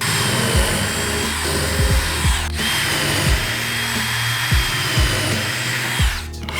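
Electric power tool running with a steady high whine, with a brief break about two and a half seconds in and stopping just before the end, over background music.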